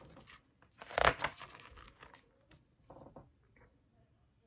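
Pages of a hardcover picture book being turned by hand: a paper swish and rustle about a second in, then softer paper handling sounds.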